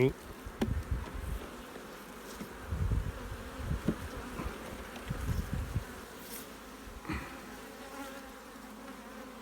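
Honey bees buzzing steadily around an open hive, with a few low bumps in the first six seconds or so.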